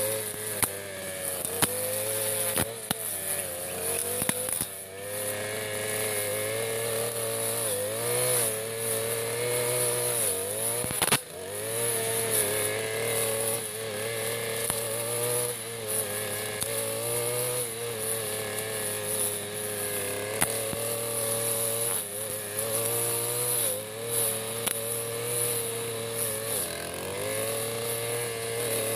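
Backpack brush cutter's petrol engine running at high speed while its metal blade cuts thick, dense carpet grass. The engine note sags and recovers several times as the blade takes the tough grass, with one sharp knock about eleven seconds in.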